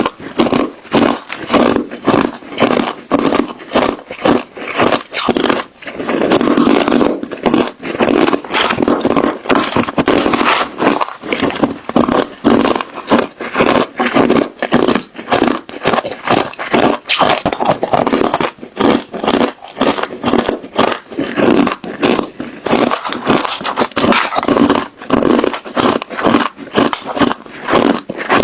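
Ice cubes being crunched and chewed close to the mouth: a continuous run of rapid, irregular cracks and crunches.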